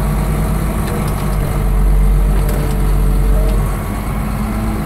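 Caterpillar D6R XL dozer's diesel engine running, heard from inside the cab; its note swells louder for about two seconds in the middle, then eases back.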